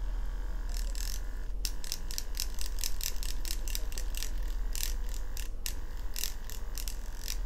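Mummy Tattoo Short rotary tattoo pen, a swash-plate machine, running at just 4 volts with an 18 round liner cartridge, its needle stippling into practice skin: a steady motor hum with a quick, uneven series of ticks from about a second in.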